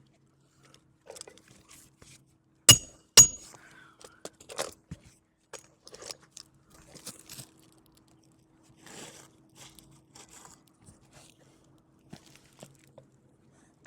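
Two sharp hammer blows on roofing nails, about half a second apart and ringing briefly, followed by scattered scraping and crunching of asphalt shingles being handled.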